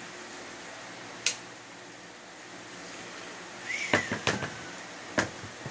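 Handling a CZ Hammer Classic hammer shotgun: one sharp metallic click about a second in, then a cluster of knocks and a short squeak around four seconds as the stock is set down in its hard plastic case, and one more knock near the end.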